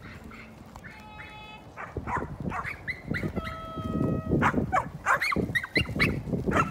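Several dogs barking and yipping as they play, starting about two seconds in and growing busier and louder, with a couple of drawn-out high notes among the barks.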